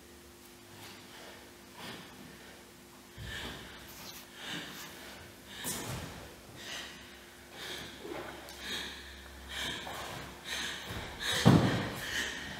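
A person breathing hard in short, audible breaths about once a second. The breaths grow louder and come faster, with the loudest near the end.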